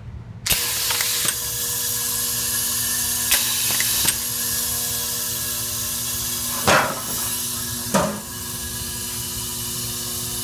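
Vibratory bowl feeder of a DTI Model 5000 automatic feed screwdriver, starting up about half a second in and then running with a steady hum and the hissing rattle of screws travelling up its track. Short hissing bursts break in several times, the two loudest a little past the middle.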